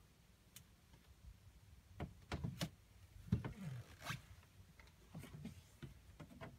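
Faint scattered knocks and clicks, with a short creak about three and a half seconds in, as a wooden cabin door is unlatched and swung open.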